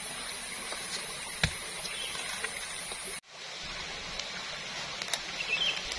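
Steady outdoor background hiss with a few faint ticks and taps, one about a second and a half in and another about five seconds in; the sound drops out sharply for an instant just past halfway.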